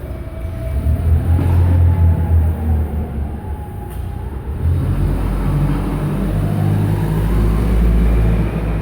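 Vertical baler running: a loud low mechanical rumble with a faint whine that rises and falls in pitch twice.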